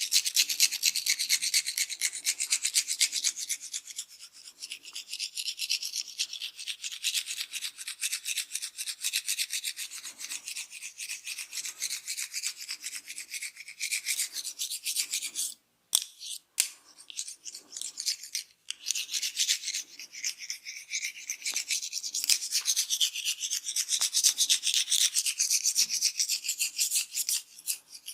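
Hands rubbing and scratching briskly through hair on a scalp close to the microphone during a head massage. The scratching is rapid and continuous, with two brief cut-outs a little past the middle.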